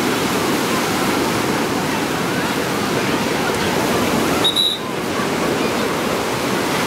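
Ocean surf breaking steadily on a sandy beach, a constant loud wash of waves, with bathers' voices faint among it. About four and a half seconds in, the noise briefly drops out with a short high beep.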